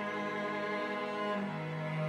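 Instrumental music: orchestral strings, cello and violins, holding long sustained chords, with the bass note moving up a step about one and a half seconds in.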